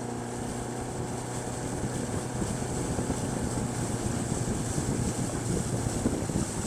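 Fishing boat's motor running steadily while the boat is underway, a constant low hum mixed with rushing wind and water.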